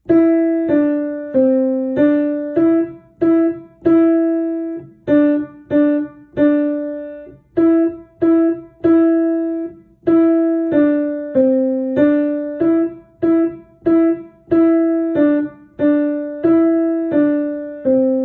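Piano played one note at a time: a fairly easy beginner's melody using only the notes C, D and E, each note struck and left to ring briefly. The last note is held and fades out.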